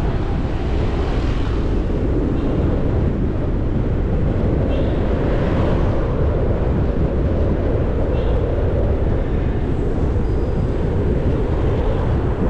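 Steady rush of wind on the microphone and road noise from a bicycle riding through city traffic, with a few faint, brief high-pitched tones.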